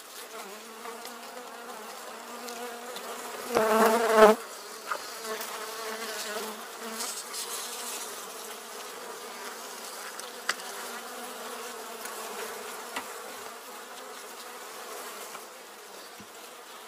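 Honeybees buzzing in an opened wooden hive as frames are lifted and shifted, the colony stirred by the inspection. The buzzing turns briefly louder about four seconds in, and there is one sharp click about ten seconds in.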